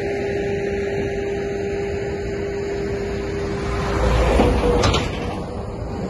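Steady machinery hum, with a louder whooshing swell and low rumble about four seconds in that cuts off sharply about a second later.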